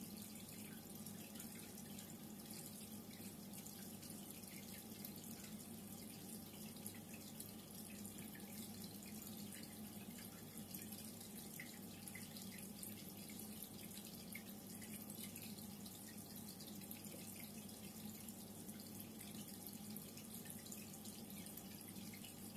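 Reef aquarium water circulating, a steady soft trickling and bubbling with a low, steady hum beneath.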